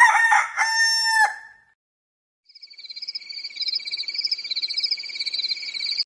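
A rooster crowing once, a loud, drawn-out cock-a-doodle-doo that ends about a second and a half in. From about two and a half seconds in, a high, rapid trill fades in and grows louder.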